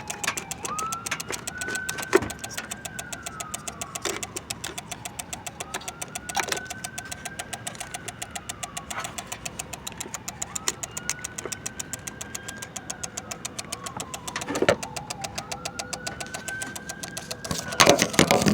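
Car fuse box with the car switched off, giving off a rapid, even clicking together with a whine that rises, holds and falls back about every four seconds, with a few louder knocks. The owner suspects this noise is why his battery keeps dying.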